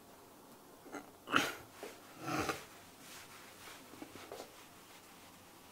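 Faint rubbing of a felt eraser wiping chalk off a chalkboard, with a short sharp knock about a second and a half in and a breathy noise about a second later.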